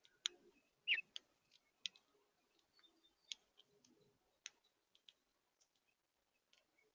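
Birds pecking and cracking seed at a feeder: faint, irregular sharp clicks and taps, with one short chirp about a second in.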